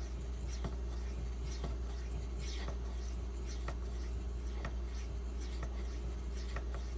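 Knife edge of Maxamet steel stroked across a 1000-grit diamond-bonded waterstone, a soft scraping stroke about once a second.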